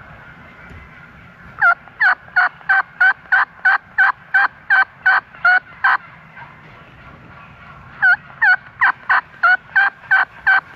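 Turkey yelps: two series of loud, evenly spaced yelps, about three a second, each note breaking from a higher tone down to a lower one. The first series runs about a dozen notes. The second starts about eight seconds in.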